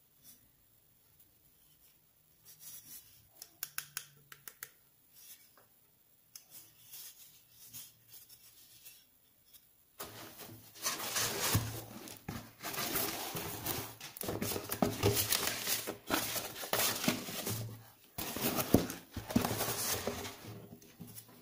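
Packaging and microphone handling: scattered clicks and rubs of the microphone and foam-lined cardboard box, then, about ten seconds in, a sudden switch to dense, louder scraping and rubbing of foam and packaging.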